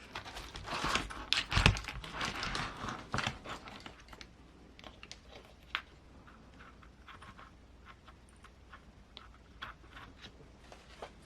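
Hands handling small parts and wires on a workbench: a cluster of clicks and rustles with a heavier thump about one and a half seconds in, then sparser light clicks.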